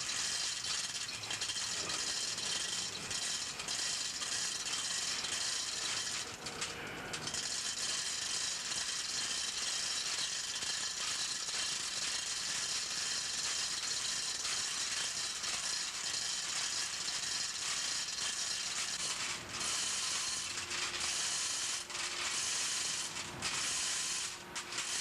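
A fast, continuous mechanical ratcheting rattle, with a few short breaks, about a third of the way in and twice near the end.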